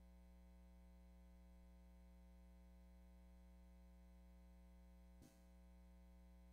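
Near silence: only a faint, steady electrical hum from the sound system, with a small click about five seconds in.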